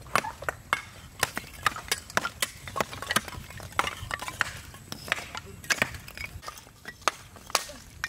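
Kitchen utensils knocking repeatedly in food preparation: sharp, irregular strikes about two to three a second.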